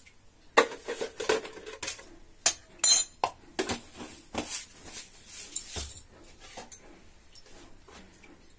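Spoon clinking and tapping against the sugar jar and the kadhai as sugar is spooned into the hot pan: a quick run of sharp clinks and taps over the first six seconds, then only a few faint ones.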